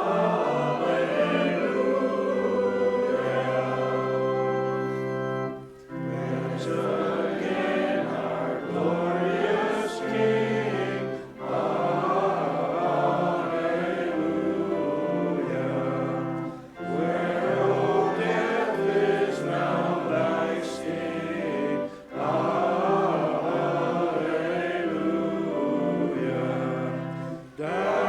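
Church congregation singing a hymn with organ accompaniment, in phrases a few seconds long with short pauses between them.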